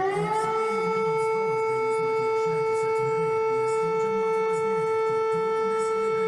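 Lithuanian civil defence alarm siren sounding a loud, steady tone with strong overtones. It glides up in pitch over the first half second, then holds level.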